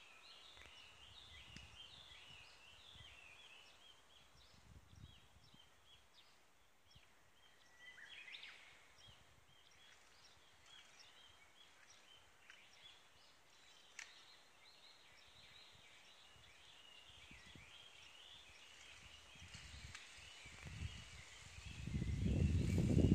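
Small birds chirping and singing against faint outdoor background noise, with a single sharp click about two-thirds of the way through. Near the end a low rumbling noise swells up and becomes the loudest sound.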